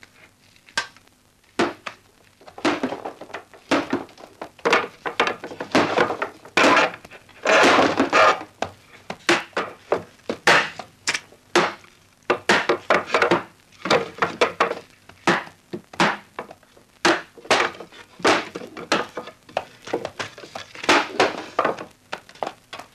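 Irregular wooden knocks and thuds, one after another and sometimes several a second: wooden planks being knocked loose and taken down.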